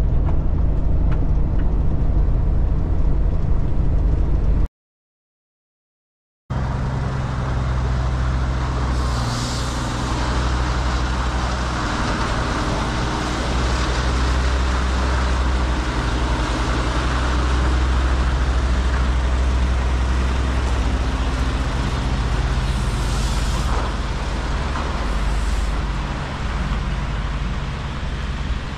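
Heavy truck's diesel engine droning inside the cab while cruising. After a brief dropout to silence, a Kenworth road train's diesel engine runs steadily as the prime mover and its trailers drive past, with three short air hisses.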